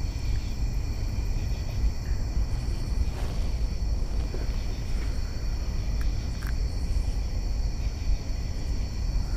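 A steady chorus of night insects, shrill even trilling at several pitches at once, over a steady low rumble, with a few faint ticks.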